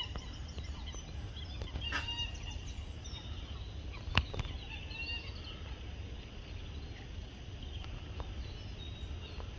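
Birds calling: short, high calls scattered through, over a steady low rumble, with one sharp click about four seconds in.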